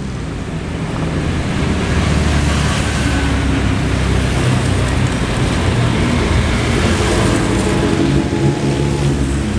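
Cars driving slowly past in city traffic: steady engine running and road noise, swelling a little as a car passes close by.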